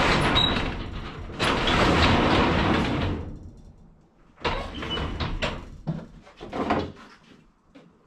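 Sectional overhead garage door rolling open, a rattling rumble for about three seconds, followed by several short knocks and clunks.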